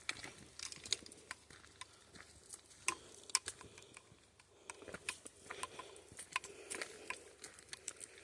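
Footsteps crunching on a dry trail, a faint run of irregular crisp crackles and clicks.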